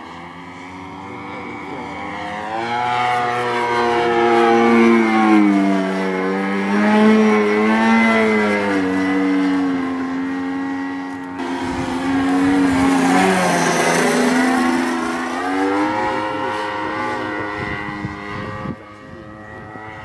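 Engine and propeller of a radio-controlled Taxi 2400 model airplane in flight, buzzing loudly. The pitch rises and falls as the plane manoeuvres and the throttle changes, and drops sharply about two-thirds in as the plane passes close by.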